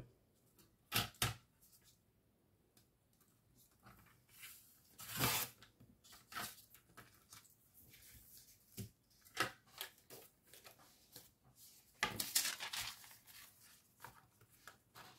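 Paper being handled: irregular rustles and a tearing sound, with small taps and clicks in between. The loudest bursts come about a second in, around five seconds in, and between twelve and thirteen seconds.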